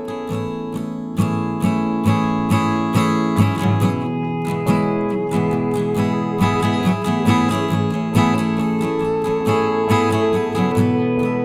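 Background music of plucked and strummed acoustic guitar, playing evenly with regular note onsets.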